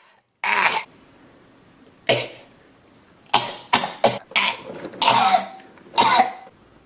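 A person coughing repeatedly: about eight short, harsh coughs, some single and spaced out, three in quick succession a little past the middle.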